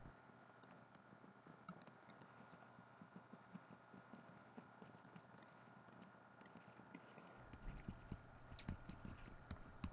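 Very faint taps and scratches of a stylus writing on a Tablet PC screen, over near-silent room tone; a low hum comes in about seven seconds in.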